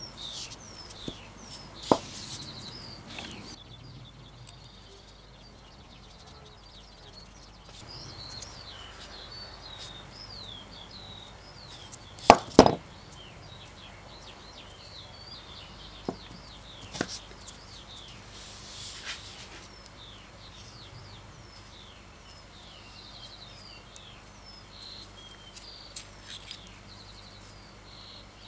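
Small birds chirping steadily in the background, with a few sharp knocks of metal parts being handled and set down. The loudest is a double knock about halfway through.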